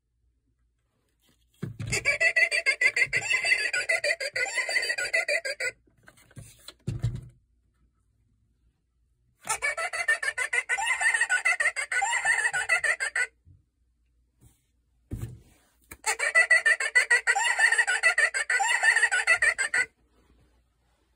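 Vintage Gemmy Halloween witch decoration's built-in speaker playing a recorded cackling witch laugh three times, each about four seconds long. A few short low knocks fall in the gaps between the cackles.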